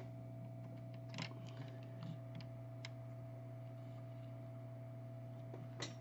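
Steady electrical hum from bench equipment, with a few scattered light clicks and taps of small tools being handled during soldering work on a phone board.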